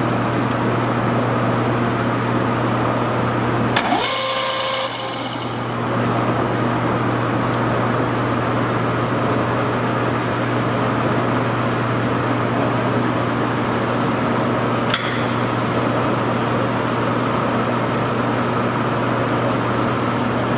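Large Stanko engine lathe running under power with its feed engaged: a steady drive hum and gear whir. About four seconds in there is a click and a brief change in the sound, and another sharp click comes near fifteen seconds, as the feed levers on the apron are worked.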